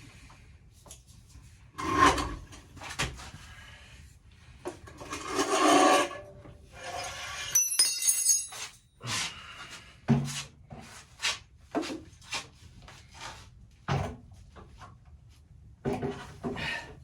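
Workshop handling sounds from the wooden stand build: irregular knocks and clicks of wood, with two longer scraping passes and a brief metallic clink partway through.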